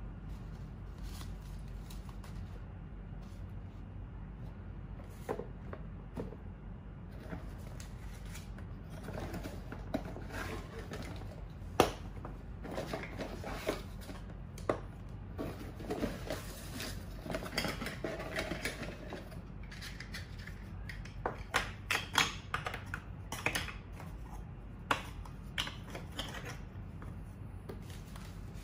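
Small bamboo-fibre plant pots and their trays being taken out of a cardboard box and set down on a glass tabletop: scattered light clacks and knocks, with rustling of cardboard and paper between them.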